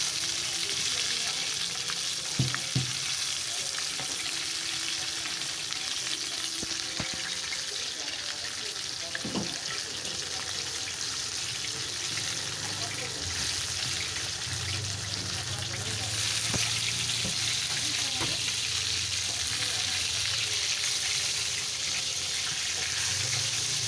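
Samosas deep-frying in hot oil in a kadhai, fried golden and ready to lift out: a steady sizzle, with two sharp knocks about two seconds in.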